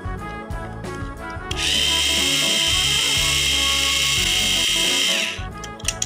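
Small battery-powered toy train motor in a knockoff Trackmaster drive unit running free for about four seconds: a very loud, steady, high-pitched whine that starts about a second and a half in and stops near the end.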